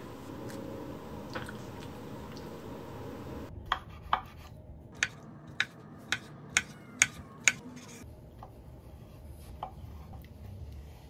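Kitchen knife cutting a block of konjac on an end-grain wooden cutting board: eight sharp knocks of the blade on the board, about two a second, begin about three and a half seconds in. Two fainter knocks follow near the end.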